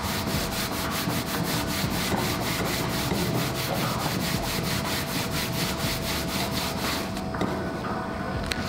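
Hands rubbing back and forth over a folded sheet of paper on a table, a fast, even run of brushing strokes that stops about seven seconds in.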